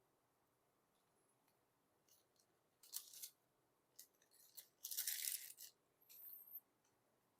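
Faint, sporadic clicks and small knocks, with a short scratchy rustle about five seconds in: light handling of small objects.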